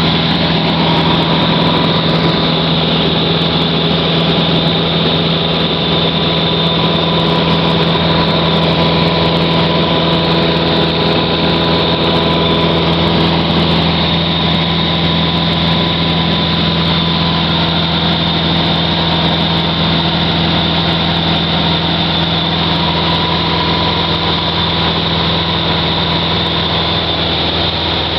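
Cessna 150's Continental O-200 four-cylinder engine and propeller running steadily in flight, heard inside the cabin as an even, loud drone.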